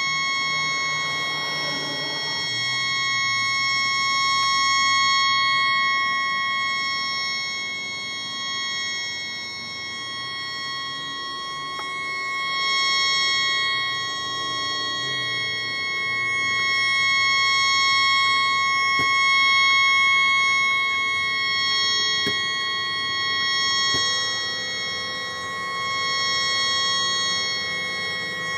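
A tugboat horn stuck on, sounding continuously as a steady chord of several tones with no break, raised in pitch by being played at four times speed. The horn had malfunctioned and would not shut off.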